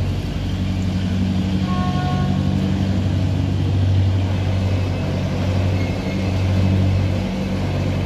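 Diesel engine of a river cargo boat running under way, a steady low drone.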